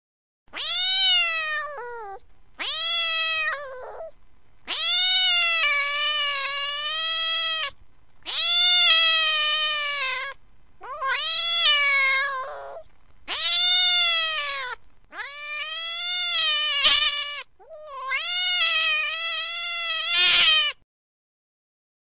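Domestic cat meowing: a series of about eight long, drawn-out meows, each rising and then falling in pitch, separated by short gaps. Two of the later meows carry a brief sharp click.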